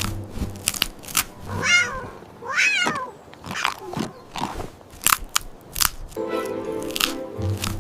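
A cat crunching on hard candy, with sharp crunches throughout, and meowing twice about two and three seconds in. Steady background music comes in near the end.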